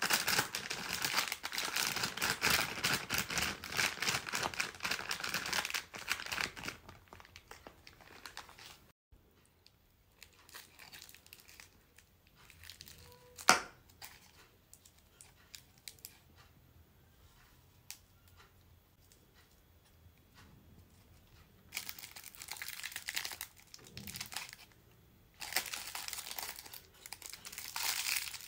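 Plastic candy wrappers crinkling in hand. At first the crinkling is loud and dense as a gummy-bear bag is emptied. After that there is a quiet stretch of light handling with one sharp click, then crinkling bursts from clear cellophane as a wrapped candy cone is unwrapped near the end.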